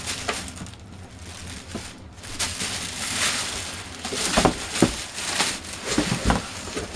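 Packaging rustling and scraping as a computer case is pulled out of its box, with several dull knocks in the second half.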